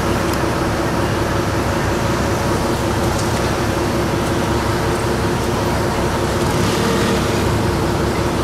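Ferry's engine running with a steady, even drone.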